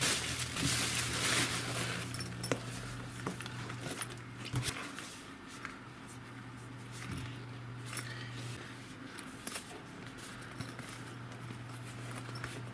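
Plastic bubble wrap rustling and crinkling as it is pulled off, loudest in the first couple of seconds. After that come scattered light clicks and rustles of a soft camera case and its strap being handled, over a faint low hum.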